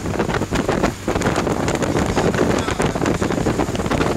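Wind rushing in through an open car window and buffeting the microphone, over the car's engine and road noise.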